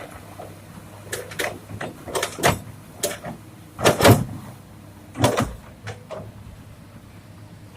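Stones clattering and banging into a dump truck's steel bed as an excavator bucket unloads them, in a string of knocks over about five seconds, loudest near the middle. Under it the excavator's diesel engine runs steadily.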